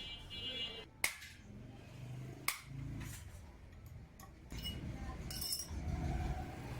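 Two sharp clicks about a second and a half apart, over a low rumble.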